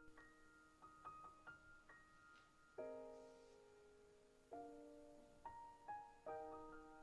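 Soft background piano music: a gentle melody of single struck notes over held chords that change every second or two.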